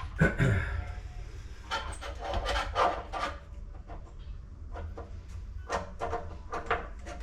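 Irregular light knocks and clicks, with a short falling creak-like sound just after the start, over a low steady hum.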